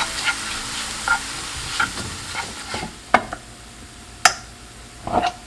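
Beech mushrooms sizzling in oil in a frying pan while a wooden spatula stirs and scrapes them. The sizzle dies down after about three seconds, and a few sharp knocks follow.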